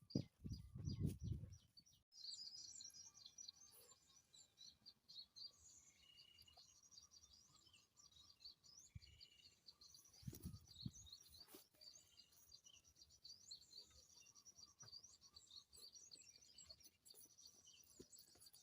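Faint, busy chirping and twittering of small birds, many short high calls overlapping. A few low thumps of handling noise come near the start and again about ten seconds in.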